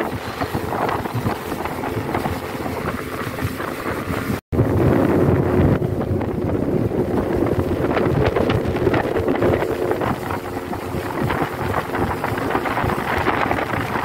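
A speedboat's 75-horsepower outboard motor running steadily at cruising speed, with wind buffeting the microphone. The sound cuts out for a split second about four and a half seconds in, then comes back slightly louder.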